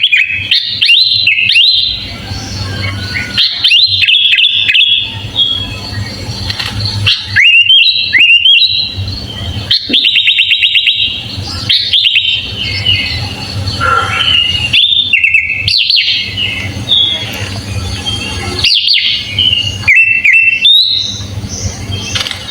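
Sooty-headed bulbul (kutilang) singing a long string of varied chirps and short whistled phrases with brief pauses between them, including a quick run of rapid notes about ten seconds in. A steady low hum sits underneath.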